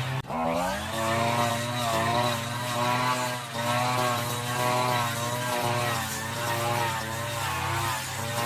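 Petrol brush cutter engine running at high revs, its pitch wavering up and down as the blade takes on and sheds load in thick grass. Just after the start the sound drops out briefly and the revs climb back up.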